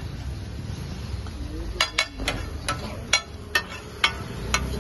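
Metal spatula striking a flat iron tawa, sharp clacks about twice a second starting nearly two seconds in, as pieces are turned and chopped in gravy. A steady low rumble runs underneath.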